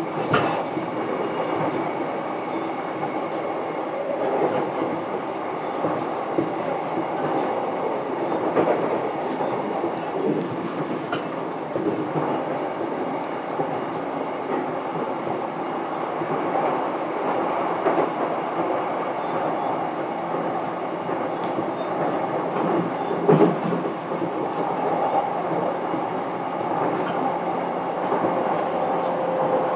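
Running noise heard inside a JR East E233-7000 series motor car (MoHa E233-7430): a steady rumble of wheels and motors with scattered clicks from the rail joints. A single louder knock comes about 23 seconds in.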